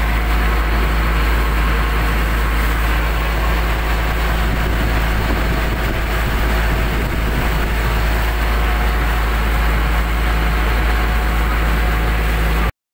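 Motorized bangka boat engine running steadily, heard from on board as a loud, even drone with a deep rumble. It cuts off suddenly near the end.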